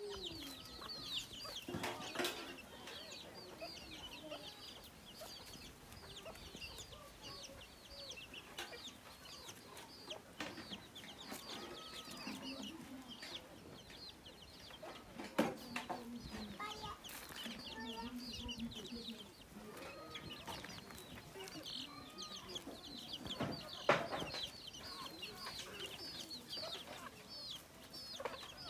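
A brood of chicks peeping rapidly and without pause, high and thin, while the mother hen clucks low now and then as she scratches for food. A few sharp knocks stand out, the loudest about halfway and near the end.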